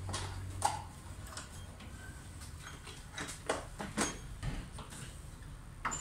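Hand tools knocking and clicking in a plastic tool case as someone rummages through it: a scattered string of short clicks and clatters.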